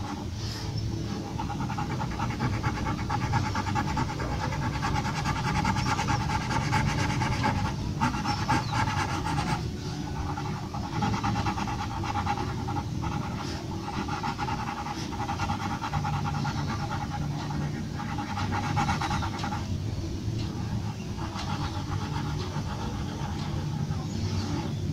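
Graphite pencil shading on paper, close to the microphone: rapid back-and-forth scratching strokes, broken by a few short pauses.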